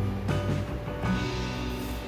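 Background instrumental music with sustained chords and a low bass line.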